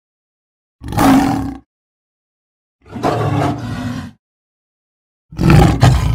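Rath, the cartoon tiger-like alien, giving three separate roaring yells, each lasting about a second, with dead silence between them; the last is the loudest.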